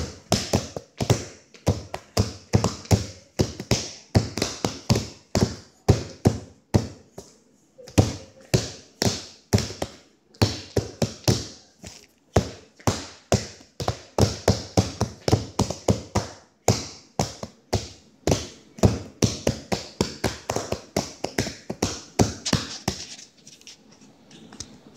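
Hands drumming on the surface the recording device rests on, a fast, uneven run of sharp taps and thumps about three a second, close to the microphone. The drumming breaks off briefly twice and stops shortly before the end, leaving a faint hiss.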